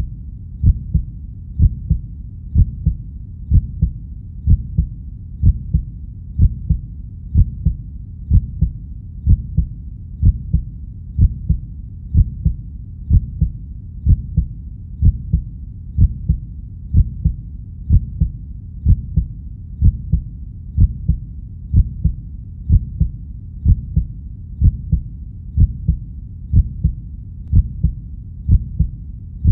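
Heartbeat sound effect: low, steady thumps about once a second.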